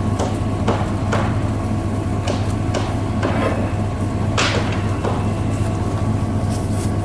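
A steady engine hum runs underneath, with scattered knocks and clicks from pipe and fittings being handled; the sharpest knock comes about four and a half seconds in.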